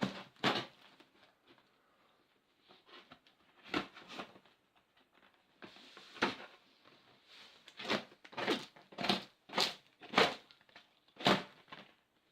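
Cardboard parcel box being cut and torn open by hand: a series of sharp rips and crunches with rustling between, coming closer together from about eight seconds in.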